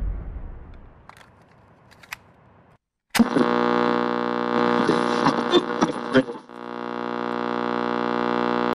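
A deep boom from a logo intro dies away over the first couple of seconds. After a brief silence, a sudden hit opens a sustained droning synth chord with crackles and clicks over it, which thins to a plain held drone that swells toward the end as the soundtrack's intro.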